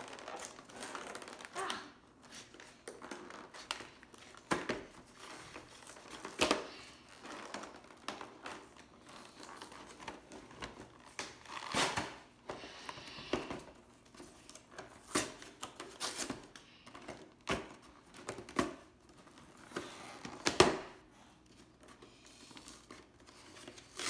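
Hands prying and working at the tight tuck flap of a cardboard trading-card collection box: irregular scraping, crinkling and sharp clicks of cardboard, with one louder snap near the end.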